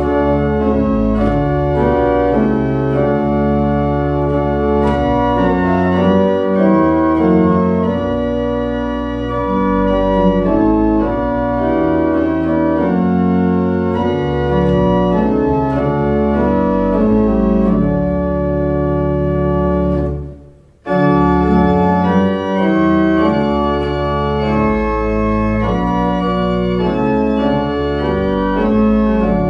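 Organ playing a hymn tune in sustained chords. It breaks off briefly about two-thirds of the way through, at the end of one verse, then starts the next verse.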